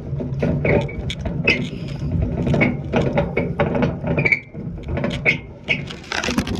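A lawn mower being moved over the ground, rattling and clattering, with a steady low hum underneath. The sound cuts off abruptly at the end.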